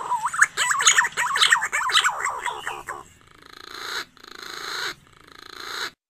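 Green pigeon (punai) call played as a hunting lure: about three seconds of rapid, warbling, rising whistles, then three noisy swells that build and each cut off abruptly.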